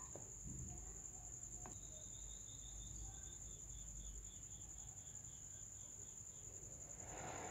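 Faint, continuous high-pitched insect trill, joined from about two seconds in by a second, lower chirping series of evenly spaced pulses that fades out about five seconds in.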